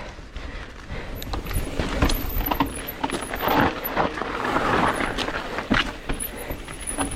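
Mountain bike riding down a rough, rocky trail: tyres rolling over rock and gravel with frequent knocks and rattles from the bike, and wind rumbling on the microphone.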